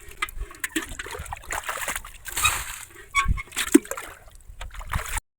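Shallow water splashing and sloshing in irregular bursts with small knocks, as water and mud are scooped by hand in a dammed field pool. The sound cuts off suddenly near the end.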